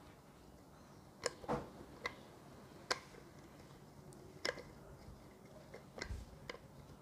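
Wooden rolling pin rolling dough on a granite countertop, giving about seven sharp, irregularly spaced clicks and knocks as the pin meets the stone.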